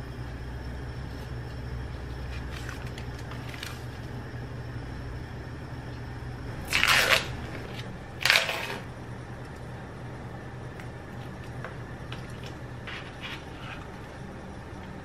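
A low steady hum stops about five seconds in. Then come two loud crackling rips, about a second and a half apart, as a plastic sealing film is peeled off a plastic food tray, followed by light clicks and taps of the tray being handled.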